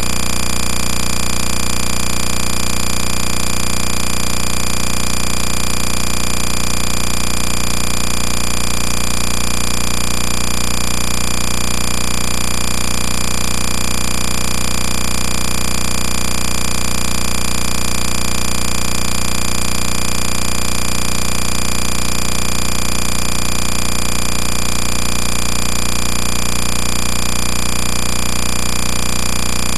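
A steady, unchanging mechanical whirring noise with a faint regular pulse.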